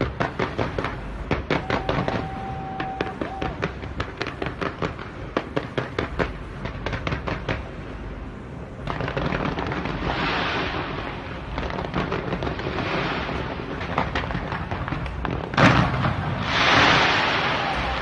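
Fireworks going off: rapid strings of sharp bangs and pops, with a brief steady whistle about two seconds in. After that comes a denser crackling rush that swells and fades, broken by one loud bang near the end.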